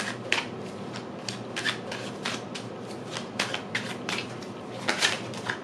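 A deck of tarot cards being shuffled by hand, overhand from one hand into the other: a quick, uneven run of short card slaps and flutters, about three or four a second.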